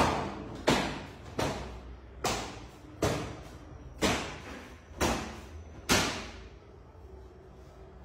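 A hand slapping a bare concrete wall, eight sharp slaps in about six seconds, each echoing briefly.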